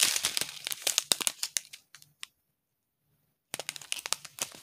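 Small plastic zip bags of diamond painting drills crinkling and crackling as they are handled and sorted. The handling is broken by about a second of dead silence just past the midpoint.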